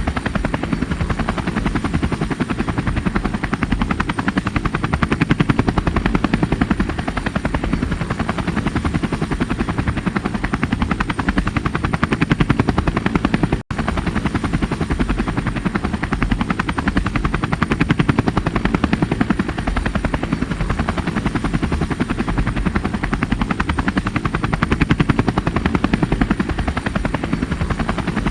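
Helicopter rotor chop, a steady rapid beating of the blades, with a faint steady high-pitched whine above it. It cuts out for an instant about halfway through, then carries on unchanged.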